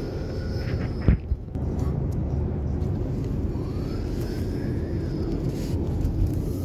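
Steady low rumble of road and engine noise heard inside a moving car, with one sharp knock about a second in.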